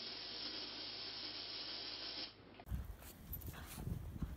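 Dog growling in one long, even snarl through bared teeth, which stops about two and a half seconds in. After that come low rumbling and a few soft thumps.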